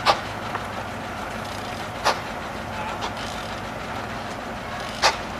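Three sharp knocks from the sawmill carriage's headblocks as the lever is worked to set the log: one near the start, one about two seconds in and one near the end, with a few fainter ticks between. Under them the engine that drives the sawmill runs steadily with a low hum.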